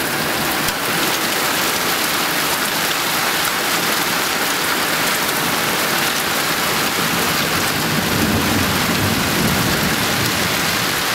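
Heavy rain pouring steadily in a thunderstorm, with a low rumble of thunder swelling in past the middle.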